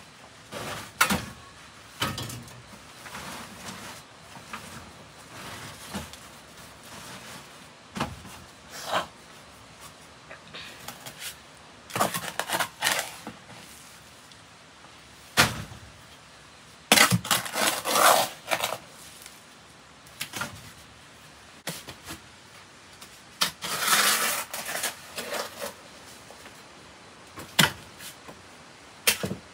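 Intermittent knocks and clatter of objects being handled and set down, some in quick clusters, over a steady low hiss.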